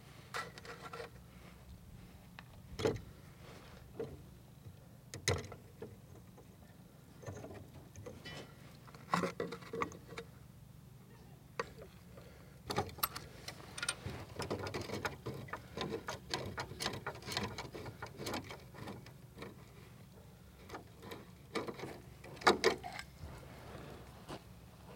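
Vise grips and an adjustable wrench clinking and knocking against a car's fuel filter fitting and steel fuel line as the threaded end is loosened, in irregular metallic clicks, busiest in the middle and loudest near the end.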